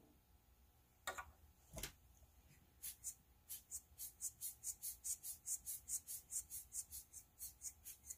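Two knocks, then a rubber hand blower bulb squeezed over and over, each squeeze a short puff of hissing air, about three a second, blowing wet alcohol ink across the paper.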